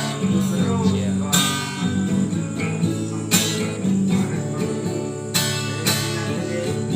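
Acoustic guitar music with strummed chords and no singing, with a strong strum about every two seconds.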